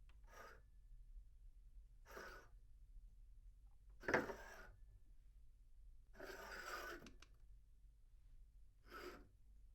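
A glass cup slid across a tabletop five times, each slide a short scrape of under a second, heard from a medium distance. The slide about four seconds in starts with a sharp knock and is the loudest; the one about six seconds in is the longest.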